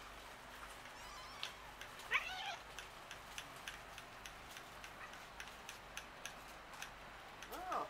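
Domestic cats meowing outdoors: one meow about two seconds in, the loudest sound, and another near the end, over faint scattered ticking.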